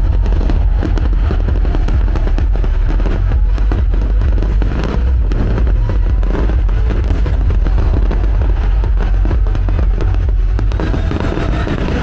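Fireworks bursting and crackling, many bangs in quick succession, over loud accompanying music.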